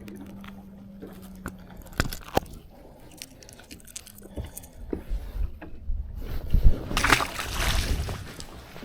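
Water sloshing and splashing against a fishing boat, the loudest about seven to eight seconds in. Before it come a steady low hum that stops about two seconds in and a few sharp knocks.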